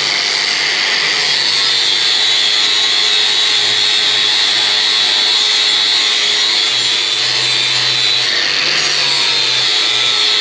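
Electric grinder with an 80-grit flap wheel grinding a steel baler chopping knife, a steady loud grinding hiss over the motor's hum as the blade is sharpened. The pitch of the grinding dips slightly about a third of the way in and again near the end as the pressure on the wheel changes.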